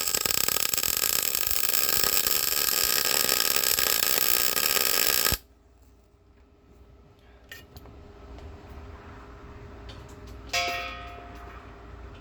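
MIG welder arc crackling steadily for about five seconds while a nut is welded onto a broken stud to turn it out, then cutting off suddenly. Near the end a piece of metal is struck once and rings briefly as it fades.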